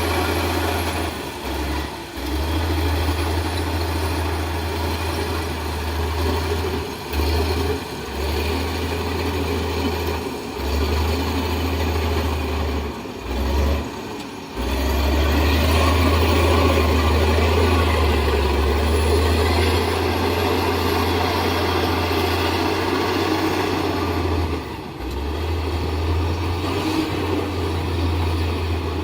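Heavy diesel engine of a construction machine running steadily under load, with a deep low rumble and a few brief dips in level.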